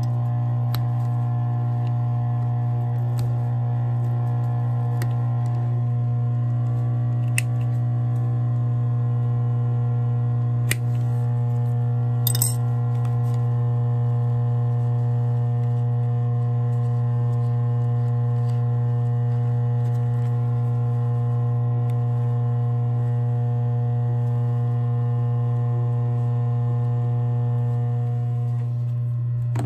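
Steady electric hum of an industrial sewing machine's motor running while the work is positioned, with a few scattered light metallic clicks, the loudest about twelve seconds in.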